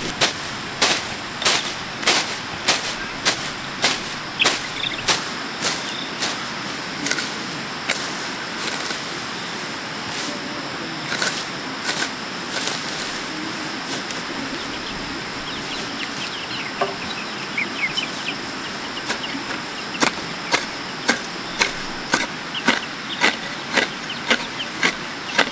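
A machete (dao) chopping bamboo in steady strikes, about two a second. The strikes pause for about ten seconds, leaving faint chick peeps, then start again a little faster near the end.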